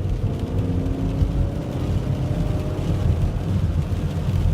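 Dodge van's 4-litre engine pulling under acceleration, its pitch climbing gently, heard from inside the cabin over a heavy low road and tyre rumble.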